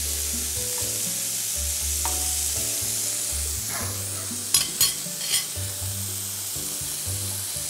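Blanched broccoli rabe sizzling as it is sautéed in hot olive oil in a non-stick frying pan and stirred with a metal spoon, with a few sharp clicks of the spoon against the pan about halfway through.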